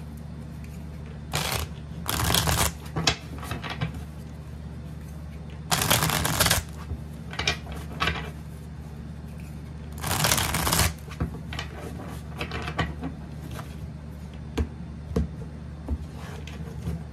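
A deck of tarot cards being shuffled by hand: four short rushes of riffling, each under a second, spread through the stretch, with light clicks and taps of the cards between them over a steady low hum.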